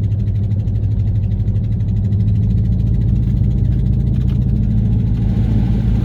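Work truck running down the road, a steady low engine and road drone.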